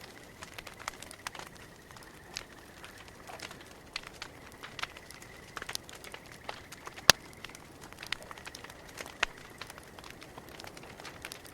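Campfire crackling: irregular small snaps and pops, with one sharp, loud pop about seven seconds in and another a couple of seconds later.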